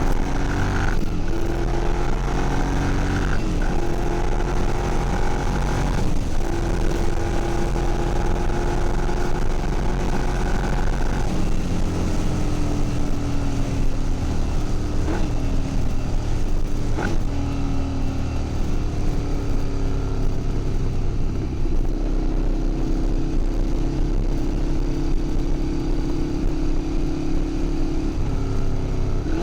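Ducati Monster 696's air-cooled L-twin engine running through straight-pipe exhausts, mostly at a steady idle with a few short throttle blips.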